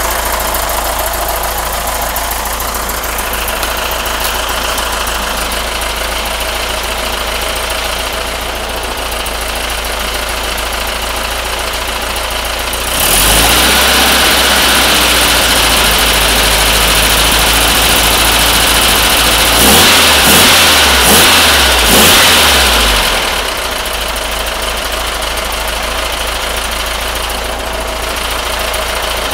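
Air-cooled Volkswagen 1600 single-port flat-four with dual Weber 34ICT carburettors and a merged exhaust header, idling steadily. About 13 s in it is revved from the engine bay and held up for several seconds, blipped four times, then settles back to idle.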